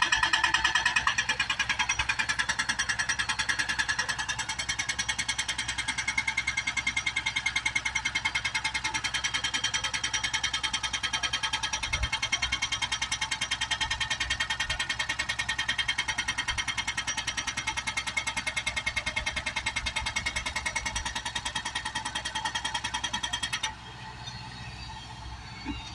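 Hydraulic breaker on a JCB excavator hammering in a rapid, steady stream of blows. It stops suddenly near the end, leaving the quieter excavator engine.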